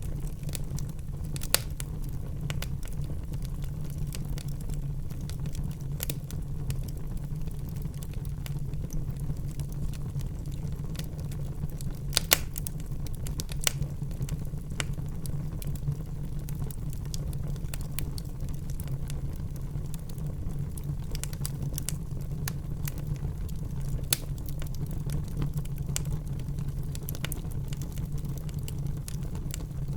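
Wood fire burning in a fireplace: a steady low rumble with scattered crackling and a few sharper pops, the loudest about a second and a half in and around twelve seconds in.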